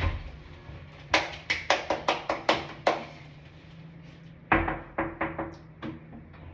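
Knuckles knocking on a wooden door: two runs of quick raps, about eight, then a pause of over a second, then about seven more.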